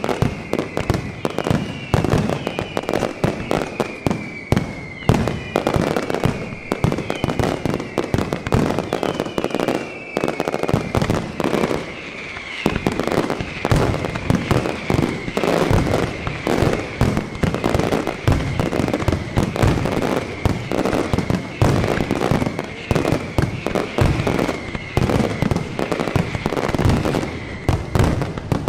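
Aerial fireworks display: a dense, unbroken barrage of shell bursts and crackle. Over the first dozen seconds whistles fall in pitch about once a second, then a steadier whistle sits under the bangs.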